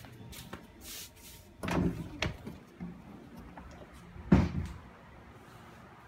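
A few knocks and thumps, the loudest one about four seconds in, then a faint steady hum from the running mini split air conditioner.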